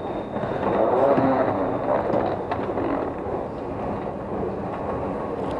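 Metro station din dominated by the rumble of a train at the platform behind the screen doors, with a few sharp clicks mixed in.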